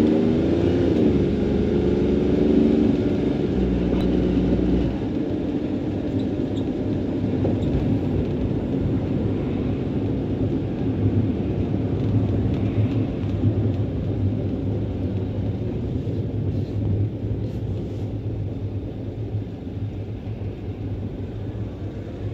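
Street traffic: a vehicle engine passes close in the first couple of seconds, its pitch rising and falling, then a steady low rumble of traffic that slowly fades.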